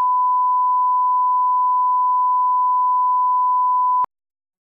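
1 kHz line-up tone of a colour-bar test signal: a single steady pure beep that cuts off suddenly about four seconds in.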